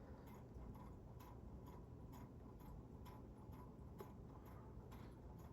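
Near silence with faint, irregular small clicks and ticks scattered throughout.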